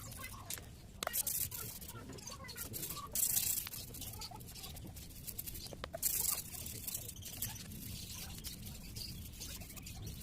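Wire brush scrubbing a motorcycle cylinder block wet with petrol, in quick uneven strokes, with louder scrapes about a second, three seconds and six seconds in.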